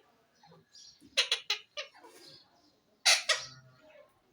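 Parrot making short harsh calls: a quick run of three or four about a second in, another just after, and a louder call about three seconds in.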